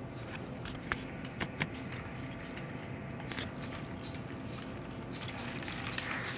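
LEGO Technic locomotive driven by four pneumatic cylinders on nitrogen gas, running along plastic track: an irregular rapid clatter of clicks and ticks over a faint hiss, growing louder after about five seconds.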